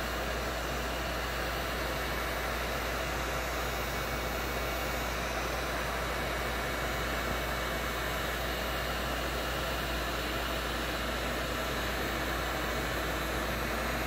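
Wagner heat gun running on its high setting, its fan blowing a steady, even hiss with a low hum underneath, while it heats the oxidized surface of a plastic ATV fender.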